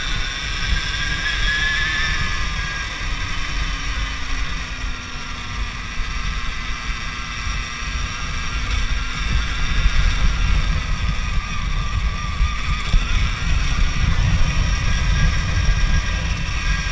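Electric motor and drivetrain of a 2018 Alta Redshift MXR dirt bike under way, its whine rising and falling in pitch with speed, over a steady low rumble.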